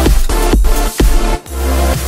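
Electronic dance music with a heavy, steady beat and deep bass.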